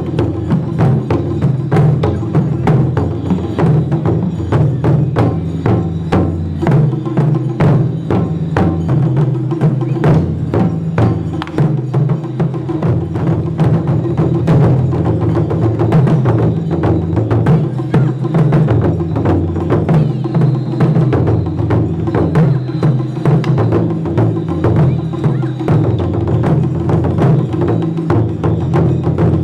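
Traditional Japanese festival music: many sharp drum and clacking percussion strokes over a sustained low melody that moves in steps.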